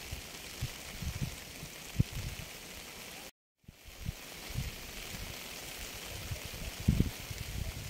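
Steady rain hiss with irregular low thuds of heavier drops; the loudest thuds come about two seconds in and near the end. The sound cuts out completely for a split second about three seconds in.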